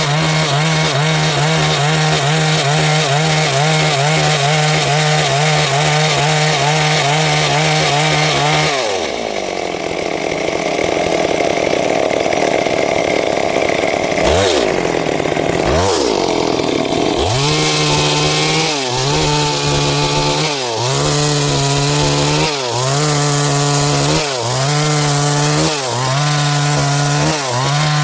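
Stihl MS 382 two-stroke chainsaw cutting wood at full throttle with a steady engine note. About nine seconds in, the note drops and blurs for several seconds, broken by two quick rev rises. From about seventeen seconds it runs high again, dipping briefly every couple of seconds as the chain loads in the cut.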